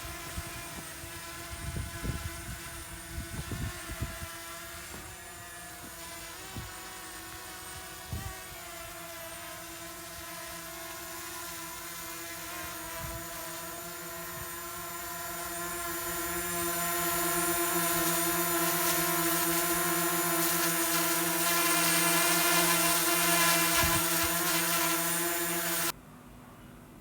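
Small quadcopter drone's electric motors and propellers whining steadily, a stack of pitched tones that grows louder about halfway through, with a few low thumps in the first few seconds; the sound cuts off abruptly shortly before the end.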